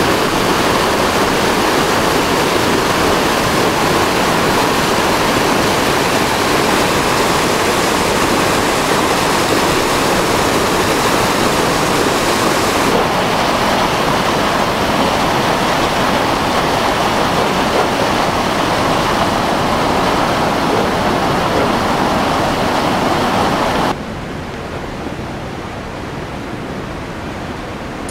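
Rushing whitewater of a forest creek, a loud steady roar of water over rocks. It drops suddenly to a quieter, duller rush near the end.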